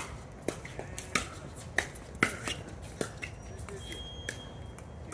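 Pickleball paddles striking a plastic pickleball in a rally: a quick string of sharp pops, roughly every half second to a second.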